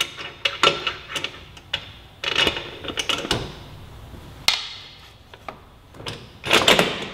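Irregular metallic clicks, taps and short scrapes as the rear axle is fed through the swingarm, chain adjusters and wheel hub of a sportbike while the wheel is lined up, with louder clusters about two and a half and six and a half seconds in.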